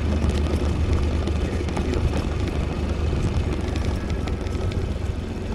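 Italika V200 motorcycle running while being ridden: a steady low engine rumble mixed with wind noise on the microphone.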